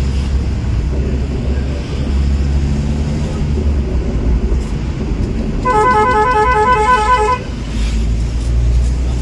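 Motor vehicle running with a steady low rumble. About six seconds in, a horn sounds for about a second and a half in a rapid pulsing beep, about five pulses a second.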